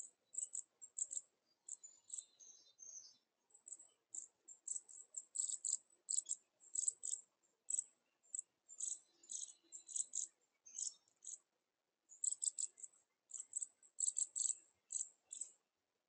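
Small birds chirping: many short, high-pitched calls in quick, irregular runs, with brief pauses about two seconds in, near four seconds and around twelve seconds.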